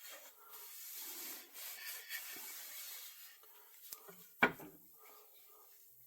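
Rubbing on the ash handle of an axe for about three seconds, fading out, then a single sharp knock about four and a half seconds in.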